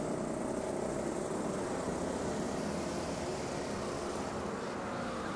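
Racing kart engines running at a distance as a steady drone, with a faint higher engine note coming in near the end.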